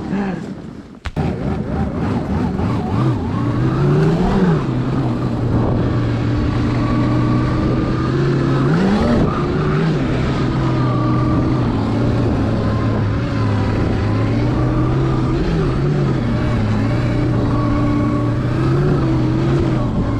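Electric snowbike, a 72 V electric dirt bike on a TrackNGo snow track kit, riding through snow: a steady whine from the motor and drive over a rumble of track noise. The pitch rises and falls twice as it speeds up, about four and nine seconds in.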